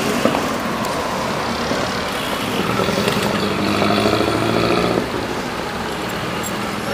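City street traffic: cars and buses running past at an intersection, with one vehicle's engine hum standing out from about two and a half seconds in and cutting off near five seconds.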